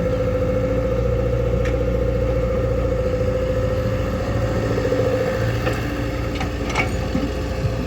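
Diesel engine of a farm tractor or backhoe loader running steadily at a constant speed, with a few sharp clanks in the second half.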